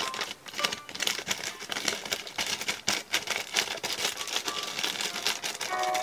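Gift-wrapping paper crinkling and rustling in quick irregular crackles as hands fold it and press it down around a box.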